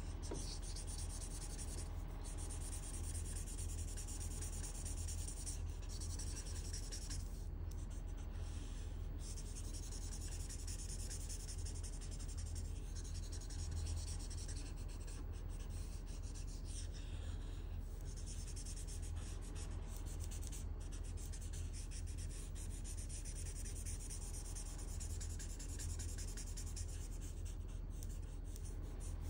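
A felt-tip marker nib rubbing across drawing paper in continuous shading strokes, a soft scratchy hiss with a few short breaks where the nib lifts. A steady low hum runs underneath.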